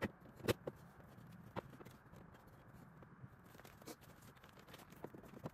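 Scattered light clicks and knocks, the loudest about half a second in, over a faint steady hiss: small handling noises from someone working in a car's open engine bay.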